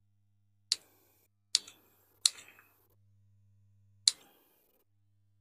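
Scissors snipping through banana peel: four sharp cuts, the first three about a second apart and the last after a longer pause.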